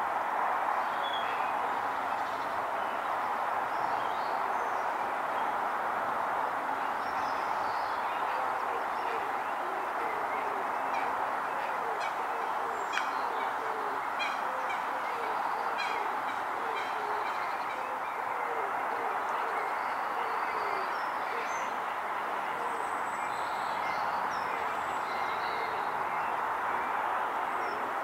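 Outdoor pond ambience: a steady rushing hiss with scattered short bird chirps and soft low calls, and a run of rapid clicks about halfway through.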